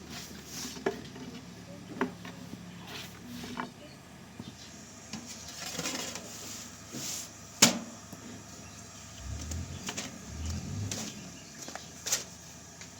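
Scattered light knocks and clicks, the loudest a single sharp knock about two-thirds of the way through, with a few low thumps near the end.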